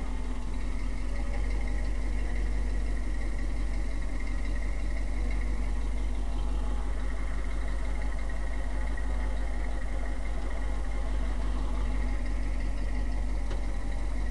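1978 Ford F350's engine idling steadily with the PTO-driven hydraulic pump engaged, working to raise the rollback bed.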